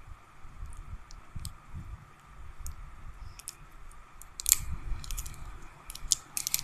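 Printed plastic wrapping being peeled by hand off a plastic capsule toy: scattered crinkles and small clicks, sparse at first and louder and thicker from about two-thirds through.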